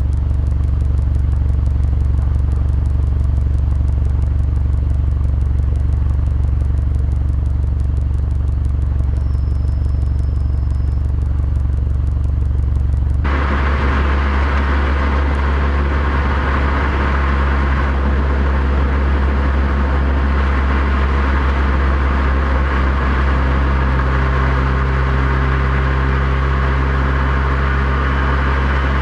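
Subaru WRX STI (VAB) on the move: a steady low drone from its turbocharged flat-four with road and tyre noise. About 13 seconds in the sound abruptly turns brighter, with much more tyre and road hiss.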